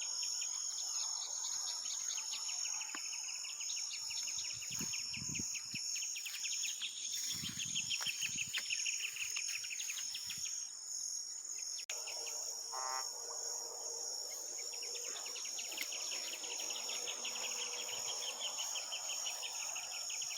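Insects, crickets among them, chirping in a steady high-pitched chorus of fast, repeated chirp trains, like a tropical forest at night. The chorus changes abruptly about halfway through, and a short call is heard just after.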